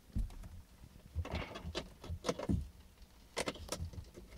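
Scattered plastic clicks and knocks as a small ELM327 Bluetooth adapter is worked into the OBD-II diagnostic port under the dashboard of a BMW E90, mixed with handling noise. The clicks come in a cluster in the middle, with two sharp ones later.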